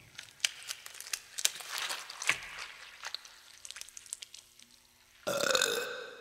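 Sound-effect wet clicks and squelches, irregular and sparse, as blood seeps out and spreads. About five seconds in comes a sudden pitched hit that fades away.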